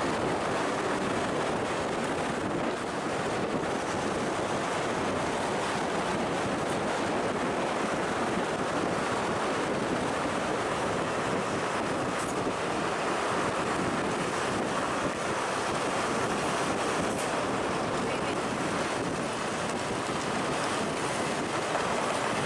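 Steady rushing noise of a heavy vehicle running, with wind buffeting the microphone.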